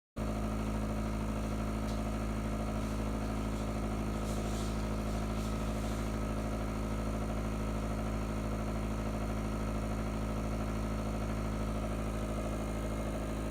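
Small nebulizer compressor running with a steady hum, blowing medicated mist into a treatment chamber.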